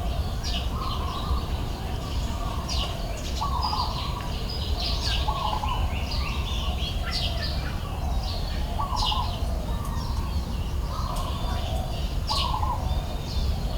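Wild birds calling outdoors: many short high chirps, and a lower call around the pitch of a whistle that repeats every second or two. A steady low rumble lies beneath.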